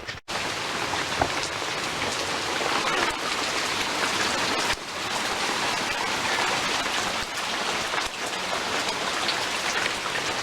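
Steady rain falling: an even hiss with fine scattered patters. It cuts in abruptly just after a brief gap at the start.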